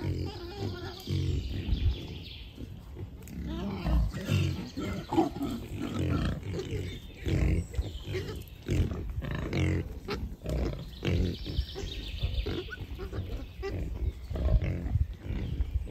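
Wild boar, adults and striped piglets, grunting: many short, low grunts one after another in an irregular run.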